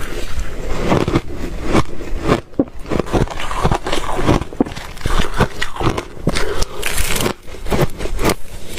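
Ice being bitten and chewed close to the microphone: a dense run of sharp crunches and cracks, with brief pauses between bites.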